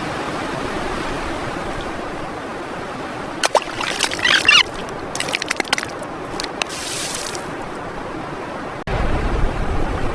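Steady sea or surf noise, with a cluster of short, sharp sounds about three and a half to four and a half seconds in and a few more until about seven and a half seconds. Near the end it switches abruptly to a louder, deeper rumbling noise.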